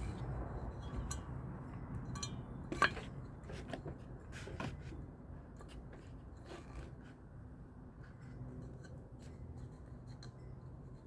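Scattered small clicks and scrapes of fan parts being handled and worked on, with one sharper click about three seconds in, over a low steady hum.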